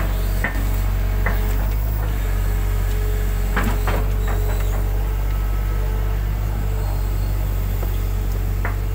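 Hitachi hydraulic excavator's diesel engine running steadily, heard from the cab, with a handful of sharp knocks and clanks from the boom and bucket as the bucket works mud out of the ditch.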